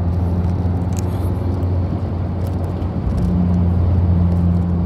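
Road and engine noise inside a car cruising on a freeway: a steady low drone, with a hum that grows stronger about three seconds in.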